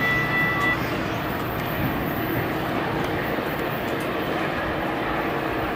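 Metra commuter train pulling away, its diesel locomotive working hard at the far end of the train, with a steady engine and rail rumble. A steady high tone cuts off just under a second in.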